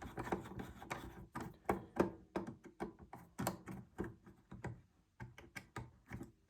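Handling noise of a vintage multimeter: a string of irregular clicks and light knocks, several a second, as it is picked up and turned over to get at its case screws.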